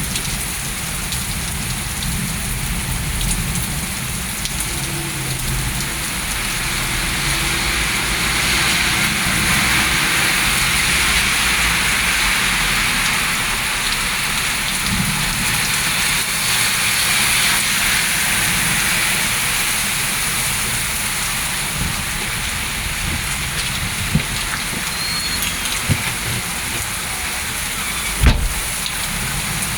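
Heavy rain pouring down in a thunderstorm, a steady dense hiss that swells and eases again through the middle. A low rumble of thunder dies away at the start, and a few sharp knocks sound near the end.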